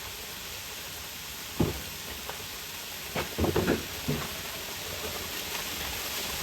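Food sizzling in a frying pan, a steady hiss, with a few knocks of a utensil against the pan.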